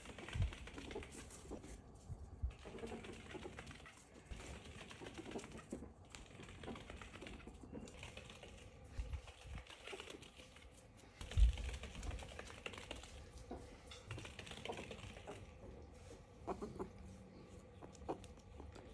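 A pet ferret playing on a yoga mat: soft clucking dooks and the patter and scrabble of its claws on the mat, with a few dull thumps, the loudest about eleven and a half seconds in.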